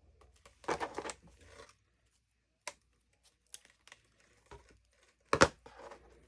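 Dry, crinkly material rustling as it is handled, with a few light clicks and one sharp knock about five seconds in.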